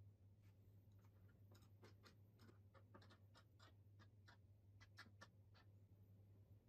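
Faint run of light metal clicks and scrapes, about three or four a second, as a hand tool turns a bolt in a T-track slot of a router template guide. The clicks start about a second and a half in and stop before the end. A steady low hum runs underneath.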